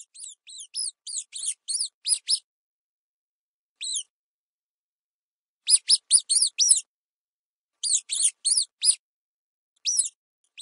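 Mouse squeaking: short, high-pitched squeaks in quick runs of several at a time, with a few single squeaks between the runs.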